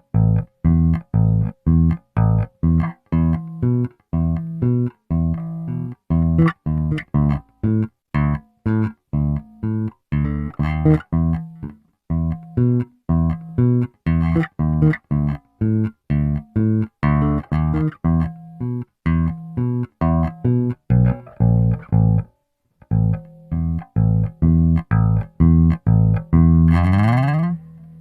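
Cort GB64JJ electric bass played clean, with no effects, EQ or compression on the signal: a run of short, separated plucked notes, about two a second, with a brief break about three-quarters of the way through. It ends with a slide up the neck.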